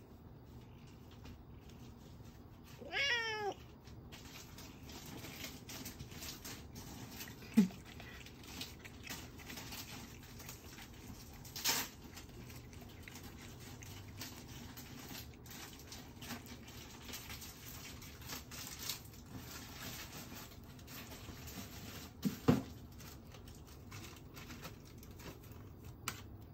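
Siamese cat giving one short meow that falls in pitch about three seconds in, a begging call for food. A few sharp taps follow at long intervals over quiet room tone.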